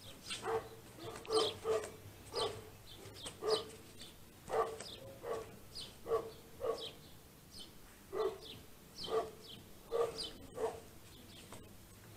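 A dog barking over and over in an irregular run of short barks, a little under two a second, some coming in quick pairs.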